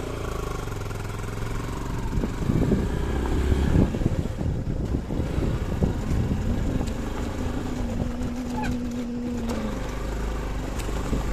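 Two-wheeler engine running steadily while riding over a rough gravel road, with a low rumble of tyres on loose stones and irregular jolts, loudest a few seconds in.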